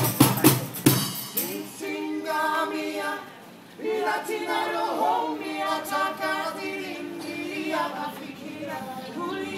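Street band's drumming stops with a last few hits about a second in, then several voices sing unaccompanied in long held notes, breaking off briefly a little after three seconds before singing on.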